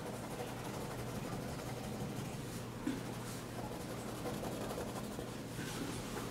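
Pencil shading on paper: faint, soft scratching strokes over a steady low hum.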